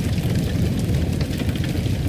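Fire burning in a fireplace: a steady low rumble of flames with scattered small crackles.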